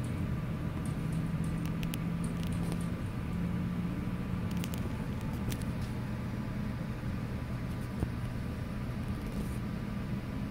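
Steady low mechanical hum of airport ground noise, muffled through the terminal window glass, with a few faint light clicks.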